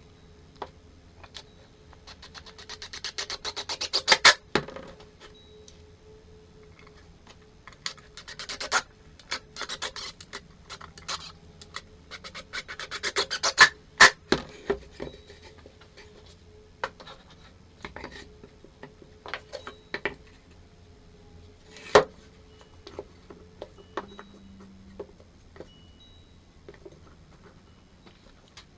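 Hand scraping on wood in three bursts of quick strokes, about two, eight and twelve seconds in, with scattered knocks and clicks between them and one sharp knock near the end. A faint steady hum runs underneath.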